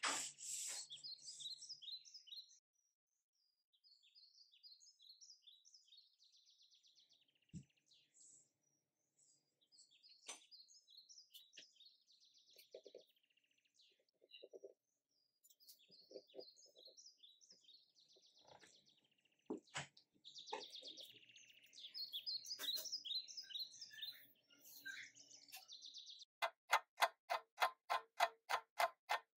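Birds chirping and tweeting in short high bursts, with a few scattered clicks. Near the end a fast, even ticking starts, about four to five ticks a second.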